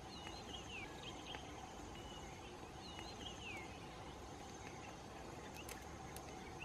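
Faint outdoor ambience of birds chirping in short sweeping calls, mostly in the first half, over a steady insect hum, with a couple of sharp clicks near the end.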